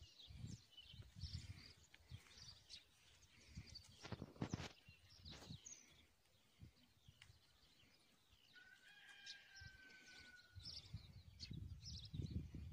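Faint rural outdoor ambience: scattered bird chirps over a low rumble, with two sharp knocks about four and five seconds in. About two-thirds through, a steady whistling tone lasts about two seconds, sliding slightly down.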